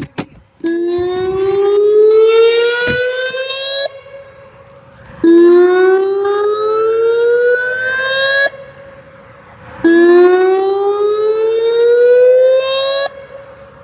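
Whelen WPS-2909 electronic outdoor warning siren sounding its whoop tone in a test. It gives three rising whoops, each about three and a half seconds long, climbing in pitch and then cutting off suddenly, with a short pause before the next. The siren is loud.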